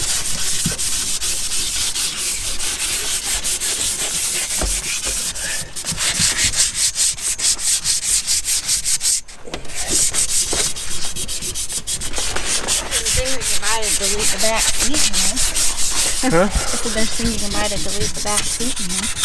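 Hand sanding with quick, even back-and-forth strokes, several a second. There is a short pause about nine seconds in.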